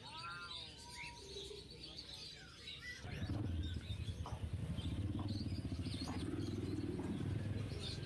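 Caged market birds chirping, with a few rising-and-falling calls in the first seconds. About three seconds in, a louder low rumble comes up underneath.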